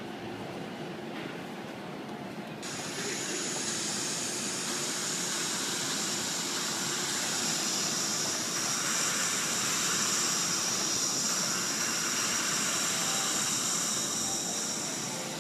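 Steady background noise of a busy train-station concourse, with a higher hiss that comes in suddenly about three seconds in.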